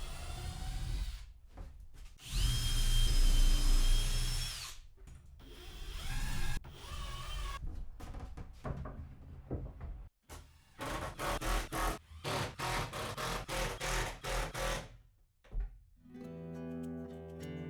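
A power drill spinning up and running for a couple of seconds with a steady whine, then working in short bursts, as screws are driven and moved. Acoustic guitar music comes in near the end.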